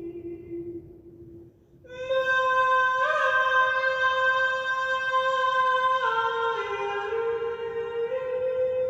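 A woman singing unaccompanied, an intuitive chant in invented 'star language' syllables: a low held note fades out, then after a short gap she sings long sustained notes that step down twice and climb back up near the end.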